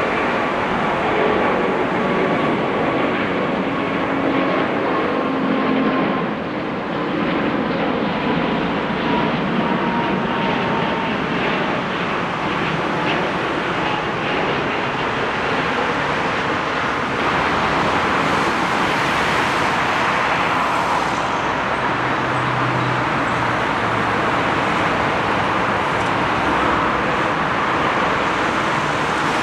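Jet engine noise of an Airbus A380 at takeoff power as it climbs away, with a faint whine falling slowly in pitch. About 17 seconds in it changes abruptly to the steady, brighter jet noise of a twin-engine Boeing 777 on its takeoff roll.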